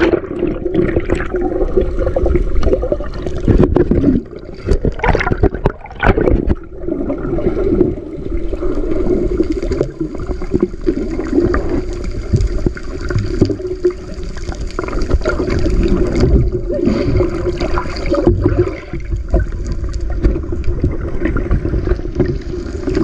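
Muffled rushing and gurgling of water heard underwater through a submerged camera, with a few louder surges about four to six seconds in.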